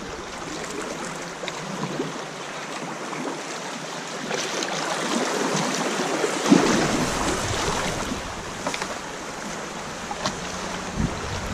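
Shallow river rapids rushing past a kayak, with the paddle splashing into the water now and then; the rush of water swells to its loudest about six and a half seconds in.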